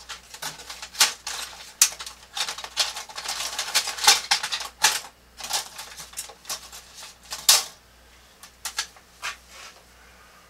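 Small hard drafting tools being rummaged through, clicking and clattering quickly and unevenly for about seven and a half seconds, then a few separate clicks before it goes quiet near the end.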